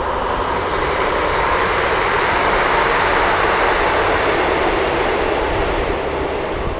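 Passenger train passing along the line, a loud even rush that swells to its peak about three seconds in and then fades as the train moves away.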